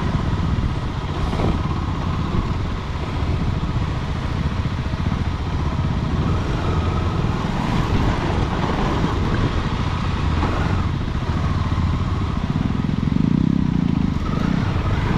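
Motorcycle engine running under load as the bike rides over a rough dirt and gravel trail, growing a little louder for a stretch near the end.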